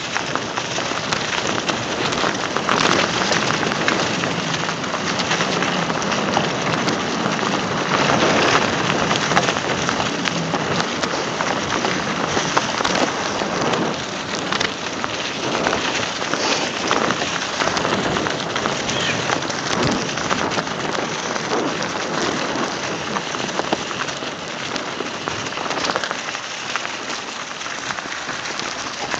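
Mountain bike rolling downhill over a forest trail covered in dry leaves: a loud, dense, unbroken crackle and rattle from the tyres on the leaf litter and the bike shaking over the bumps.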